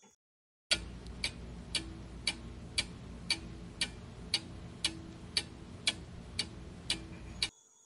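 Clock ticking sound effect marking a quiz's answer countdown, about two even ticks a second over a faint hiss, starting just under a second in and stopping shortly before the end.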